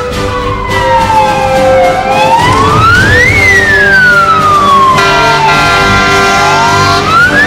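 Fire engine's siren in wail mode, sweeping slowly up and down in pitch: a quicker rise of about a second and a half, then a longer fall of about three seconds, repeating. Steady held tones that change pitch now and then sound alongside it, over a low engine and traffic rumble.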